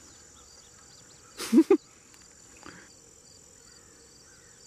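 Steady high-pitched chorus of insects. About a second and a half in, a person makes a brief loud two-part vocal sound close by.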